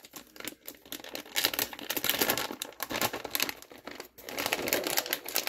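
Plastic bag of shredded cheese crinkling as it is handled, a dense irregular crackle with a short lull about four seconds in.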